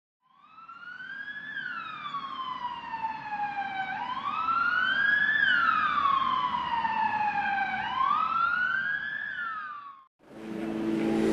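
Emergency vehicle siren wailing over a low rumble: it fades in, then rises quickly and falls slowly in pitch three times, about once every four seconds. It cuts off suddenly near the end, and a different, noisier sound starts up and grows louder.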